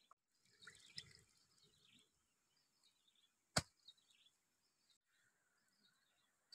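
Faint chirping of small birds, with soft rustling about a second in and one sharp click a little past halfway.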